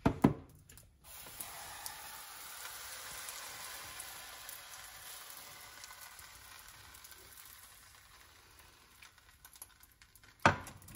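Pancake batter sizzling in a hot non-stick frying pan: a steady hiss that starts about a second in and slowly fades. A sharp knock sounds just before the sizzle starts, and another near the end.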